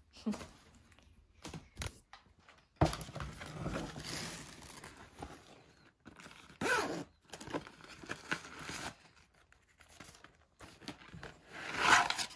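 Packing paper and cardboard rustling, crinkling and scraping in irregular spells as new leather boots are unpacked from their box. Near the end a paper stuffing insert is pulled out of a boot, which is the loudest rustle.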